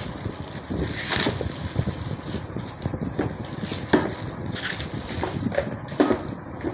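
Gift packaging being handled and opened: irregular rustling and crinkling with sharp cracks or tears, the loudest about a second, four seconds and six seconds in.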